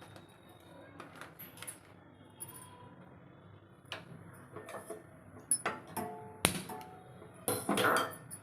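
Kitchen clatter: a series of knocks and clinks of utensils and vessels, some ringing briefly, with the busiest, loudest stretch near the end.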